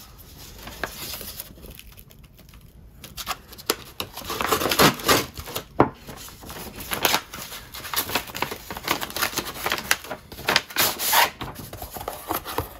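A manila envelope being cut open with a knife and torn, with scraping, tearing and paper rustling in irregular bursts. Near the end a cardboard insert slides out of the envelope.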